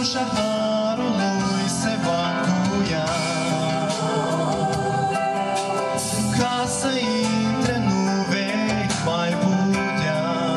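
A group of men and women singing a Christian hymn together into microphones, over a steady instrumental accompaniment, amplified through a PA. Held notes waver with vibrato.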